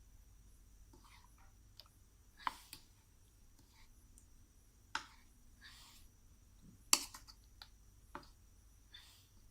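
Scattered light clicks and three sharper knocks, the loudest about 7 s in, from kitchen utensils and bowls being handled while pork is coated in batter.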